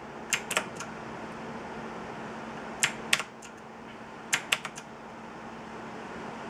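Keys pressed on a Mechanical Eagle Z77 mechanical keyboard with clicky blue switches: three short bursts of sharp clicks, the first just after the start, the second a little before halfway and the third past the middle, over a steady low hum.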